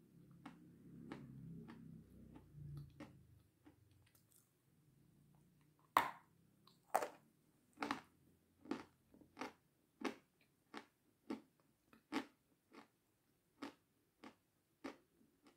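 Dry meringue coated in sour cream crunching as it is bitten and chewed, with sharp crunches coming steadily a little more than once a second in the second half. A low rumble fills the first three seconds.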